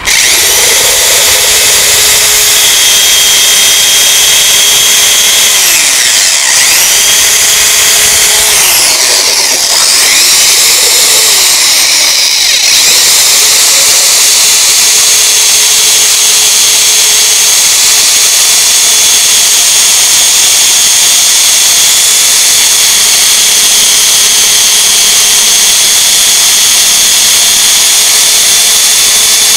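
Hand-held electric drill running in reverse, its bit boring into a broken bolt in a washing-machine gearbox shaft to make a pilot hole for a bolt extractor. The loud motor whine dips in pitch and recovers about three times in the first half as the bit bites, then runs steady.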